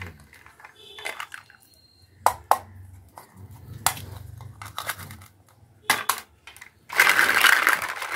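Hollow plastic toy fruit and vegetable pieces clicking and clacking against each other as they are picked up and handled, with a few separate sharp clicks and then a denser, louder rasping clatter of pieces being rummaged through for about a second near the end.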